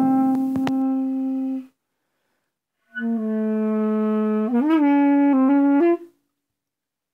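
A reed wind instrument playing free-jazz phrases: a long held note that stops, then after a short silence another long, lower note that bends upward into a few short notes before cutting off.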